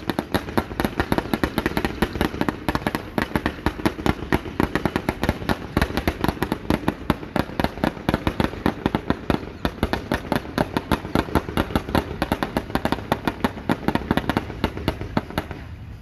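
Aerial fireworks bursting overhead: a dense, unbroken string of rapid pops and crackles, several a second, that thins out at the very end.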